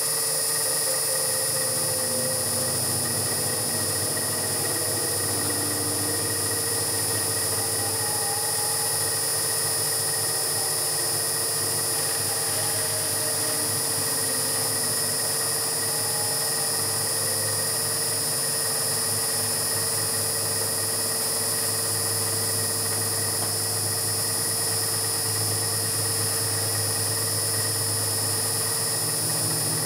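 Homemade CNC milling machine cutting a solid aluminium round bar with an end mill: steady spindle and cutting noise with a constant whine, at an even level.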